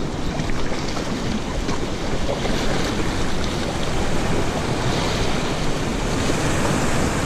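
Ocean surf washing and splashing against the rocks below, steady throughout, with wind rumbling on the microphone.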